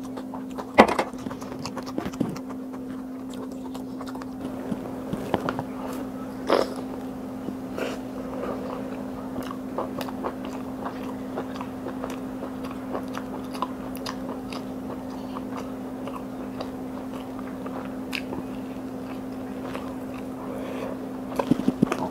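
Close-miked eating sounds: biting and chewing mutton curry pieces eaten by hand, with many small clicks over a steady low hum. A sharp knock comes about a second in.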